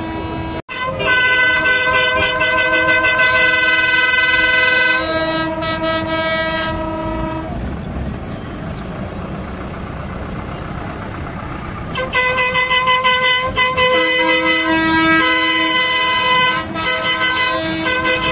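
Multi-tone air horns on parading tractors, several held notes sounding together as a chord for about six seconds, then blowing again from about twelve seconds in with some notes pulsing. Tractor engine noise fills the gap between the two horn blasts.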